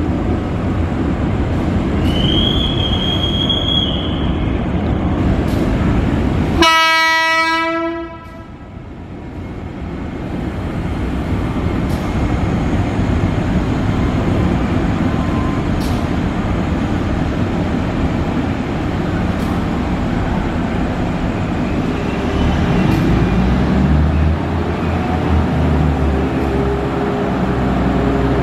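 A train running through with a continuous rumble. About seven seconds in, a diesel locomotive's horn sounds once: a single-pitched blast of about a second and a half that cuts off sharply. A brief high-pitched tone comes about two seconds in, and a low, steady engine hum sets in near the end.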